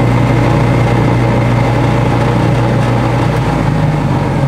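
DuraTest alternator tester's drive motor spinning a GM alternator under bench test: a steady, loud mechanical drone with a low hum. The alternator under test is the one suspected of no longer charging the car's battery.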